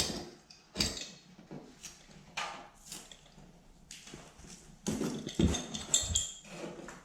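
Knife blade cutting and scraping loose paper off drywall: a few short scrapes and clicks, then a busier run of scraping about five seconds in.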